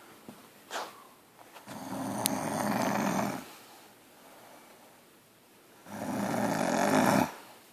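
A woman snoring in her sleep: two loud snores about four seconds apart, each lasting about a second and a half, with a brief sharp sound just before the first.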